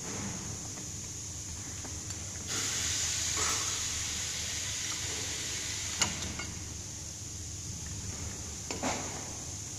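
Steady hiss that gets louder about two and a half seconds in, with a couple of sharp clicks from parts being handled during disassembly.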